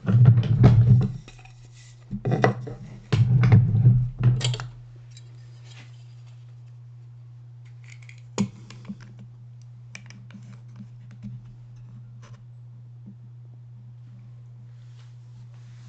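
A woodworking hand tool scraping through wood: a short bout of scratchy cutting strokes, then two more bouts between about two and five seconds in. After that only a low steady hum remains, with a sharp click about eight seconds in and a few light taps.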